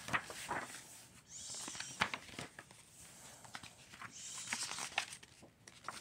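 Pages of a picture book being turned and handled: soft paper rustles with scattered small taps and clicks.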